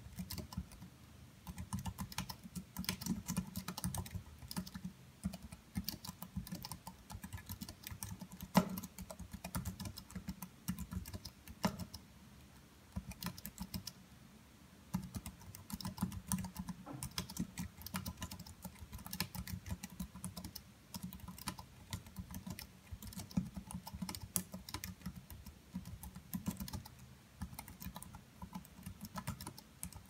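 Continuous fast typing on an Apple wireless keyboard's low-profile keys: a dense patter of key clicks, with a couple of louder key strikes and a short pause a little before halfway.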